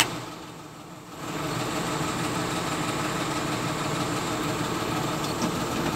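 New Holland W130 wheel loader's diesel engine idling, heard from the cab. It drops quieter for about a second near the start, then runs steadily.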